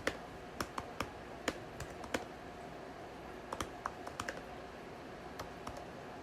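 Computer keyboard typing: keystrokes come in two short runs with a pause of about a second between them, then a few single key presses near the end.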